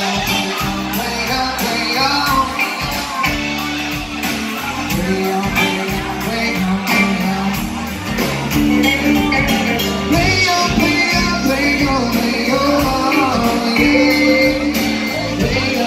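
Live rock band playing amplified: acoustic and electric guitars and drums keeping a steady beat under sung lead vocals.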